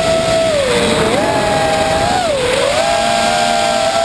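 FPV quadcopter's brushless motors and propellers whining, heard from the drone's onboard camera over a rush of air noise. The pitch dips twice, about half a second in and again around the middle, as the throttle is eased and then opened again.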